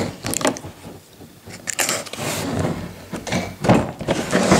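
Hands working at the taped seal of a cardboard box: irregular scraping and rustling of cardboard and tape, with a short pause about a second in.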